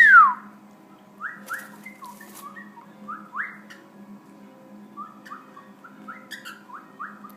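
A loud swooping whistle right at the start, then a cockatiel chirping: a string of short, soft rising chirps, two or three a second, with a pause around four seconds in.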